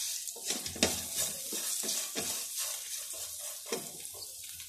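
Spatula stirring and scraping chopped onion, capsicum and spices around a non-stick frying pan, with the hot oil sizzling lightly. There are irregular scraping strokes, with a couple of sharper knocks in the first second.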